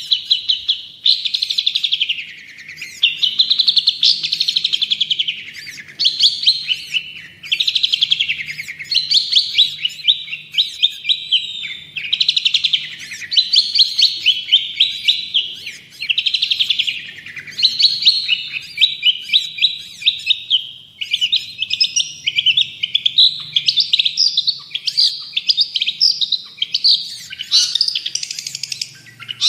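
Long-tailed shrike (cendet) singing vigorously: phrase after phrase of fast, rapidly repeated chattering notes, each phrase rising and falling in pitch, with only brief breaks between them.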